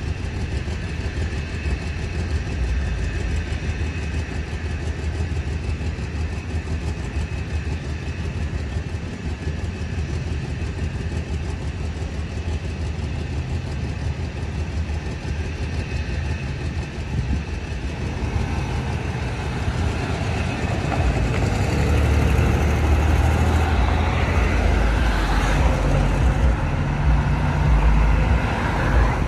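Steady low rumble of road traffic, then from about twenty seconds in a line of cars and a pickup drives past close by, and the engine and tyre noise gets louder.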